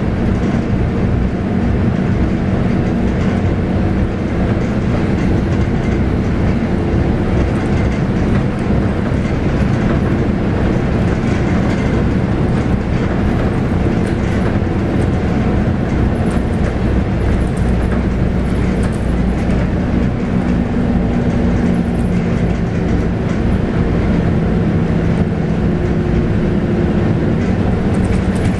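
Scania K280UB bus's 9.3-litre five-cylinder DC9 diesel running under way, heard from inside the cabin along with steady road noise. The engine note holds steady and shifts a little in pitch a few times as the bus drives on.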